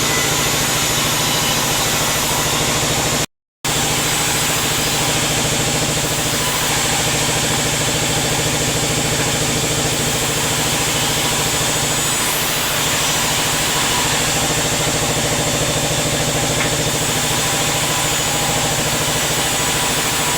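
Sawmill bandsaw machine running steadily with an even mechanical hum. The sound cuts out completely for a moment about three seconds in.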